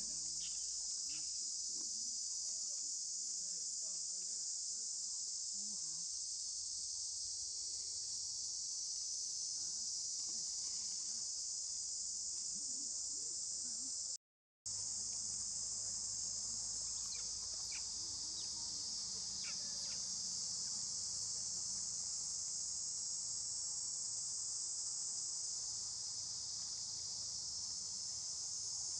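Steady, high-pitched insect chorus, a continuous shrill buzzing drone that cuts out for a moment about halfway through.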